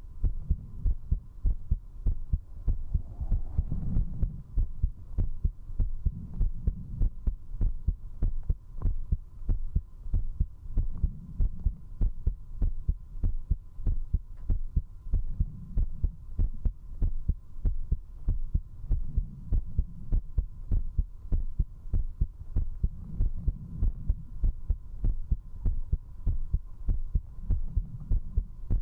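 A person's heartbeat picked up at zero distance by a binaural microphone: strong, fast, regular beats, quickened by drinking alcohol.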